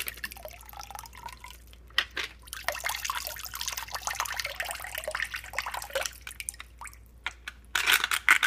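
Water splashing and dripping in a sink of soapy water as a waterlogged Lego boat is handled and lifted out, with a quick run of drips and splashes near the end.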